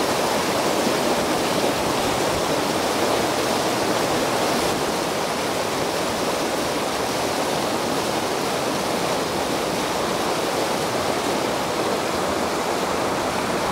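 Rainwater runoff from a hail storm rushing through a wash, churning over rocks in a steady, unbroken rush of water.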